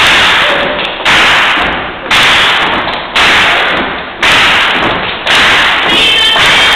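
Live gospel choir and band performance: heavy hits on the beat about once a second, each starting suddenly and fading away before the next.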